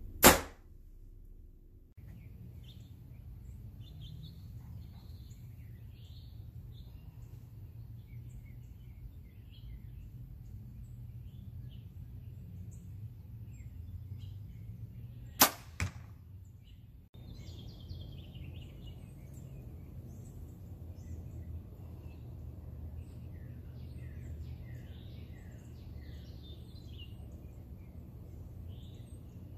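Obsession Defcon HZ7 hybrid-cam compound bow shot twice, a sharp snap of the string on release just after the start and again about halfway through. The second shot is followed under half a second later by a fainter knock. Birds chirp faintly between the shots.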